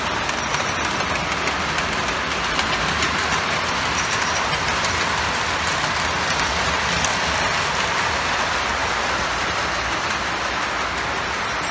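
O gauge model trains running on the layout's track: a steady rolling rattle of metal wheels on the rails.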